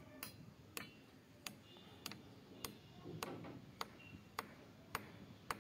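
Light hammer taps on a metal fitting, evenly paced at a little under two a second, each a short sharp tick.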